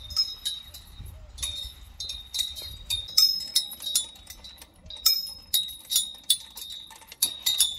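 Outdoor playground chimes of hanging metal tubes struck again and again with a stick, each strike giving a high, ringing metallic tone. The strikes come faster and louder from about three seconds in.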